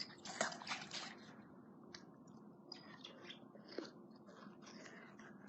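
Faint, irregular clicking and crackling of a dog mouthing and chewing close to the microphone.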